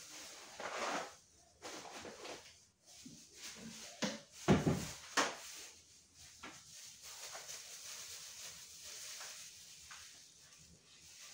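Handling sounds of wiping a cake stand's base with a paper towel: scattered rustles and light knocks, with two sharper knocks about four and a half and five seconds in.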